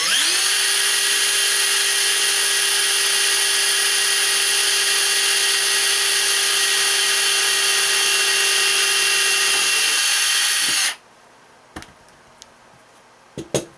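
DeWalt cordless drill running at a steady high speed with a 1/16-inch bit, drilling a small hole through an AR-15 buffer tube. It stops abruptly about eleven seconds in, followed by a few small handling clicks.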